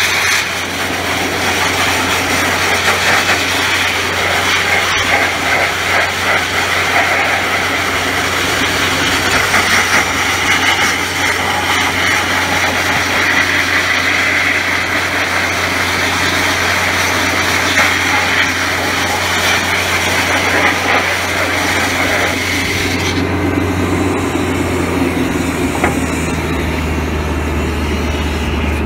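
Dustless Blaster DB500 wet abrasive blaster spraying crushed glass onto a steel car guard, a loud steady hiss over the steady drone of the 185 CFM air compressor. About three-quarters of the way through the blasting stops and the compressor keeps running alone.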